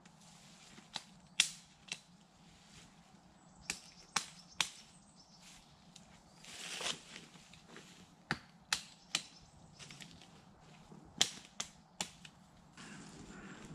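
Twigs and small branches snapping: about a dozen sharp cracks at irregular intervals, with a brief rustle of branches around seven seconds in.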